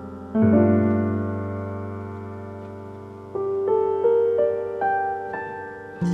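Calm instrumental background music on piano. A soft chord is struck about half a second in and left to ring and fade, and a few gentle single notes follow from about three seconds in.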